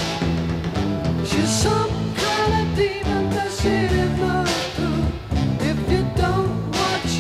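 Rock music with guitar and singing.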